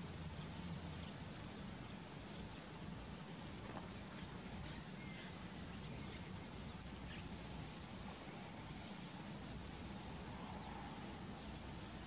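Faint, scattered high chirps of small birds, with a steady low hum underneath.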